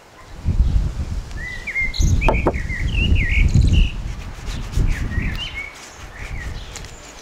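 Small birds chirping in short, swooping notes over loud, low rumbling that comes in gusts and fades toward the end.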